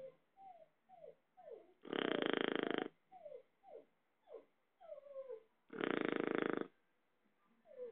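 Shar-pei dog snoring: two loud, buzzing snores about a second long each, roughly four seconds apart, with short falling nasal whistles and squeaks between them.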